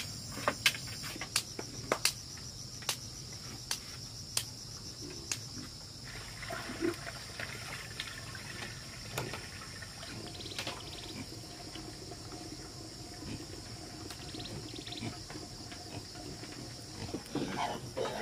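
Steady high chirring of insects, with a run of sharp knocks, roughly one every second, through the first five seconds.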